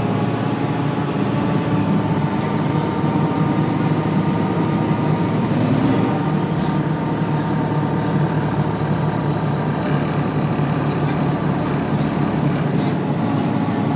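2003 Gillig Phantom transit bus running, with a steady whining tone that drifts slightly in pitch over the rumble of the bus. This is the weird sound the uploader takes for the axle.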